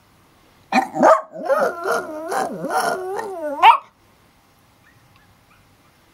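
Small long-haired dog howling in a run of short, wavering notes for about three seconds, ending on a sharp rising yelp and then stopping.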